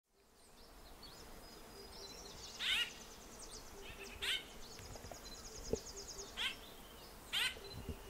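White-winged grosbeak calling: four short, loud calls, each a quick falling note, one to two seconds apart. A fast, high-pitched ticking trill runs behind the first three.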